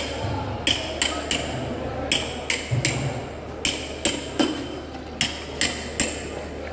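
A steel blade striking hard repeatedly in short runs of two or three, each knock leaving a brief metallic ring.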